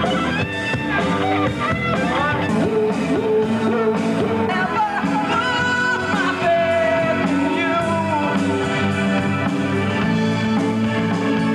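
Rock band playing live: a singer over electric guitar and drums with a steady beat.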